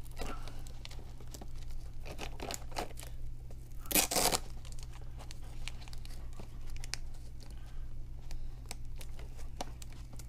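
A camera strap being pulled tight and fastened around a battery on a small hexacopter: handling rustles and scattered clicks, with one louder burst about four seconds in.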